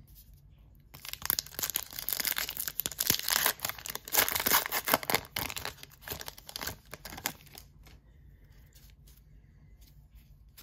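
Foil wrapper of an Upper Deck AEW trading card pack being torn open and crinkled: a crackling rustle that starts about a second in, lasts about six seconds, then dies down.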